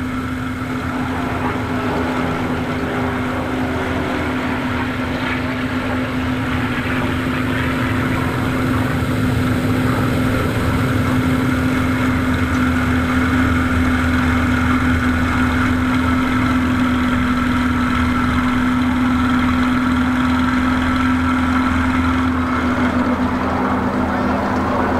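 Piston engine and propeller of a WWII fighter heard from inside the cockpit, running steadily in flight as a loud, even drone; the note shifts slightly lower near the end.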